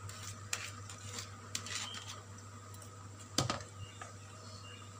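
A metal spoon clinking and scraping against the pot while leveling a layer of cooked basmati rice: a few light clicks, the loudest about three and a half seconds in, over a steady low hum.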